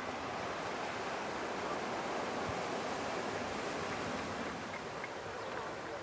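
Atlantic Ocean surf breaking and washing up the beach in a steady rush that swells a little in the middle.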